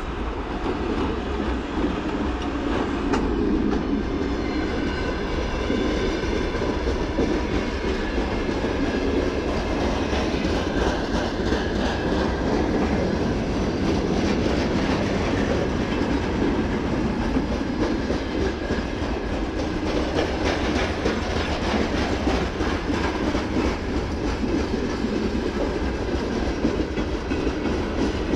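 A VL80S electric locomotive passes close by at the head of a long freight train. Tank cars and open wagons then roll past, their wheels clacking steadily over the rail joints.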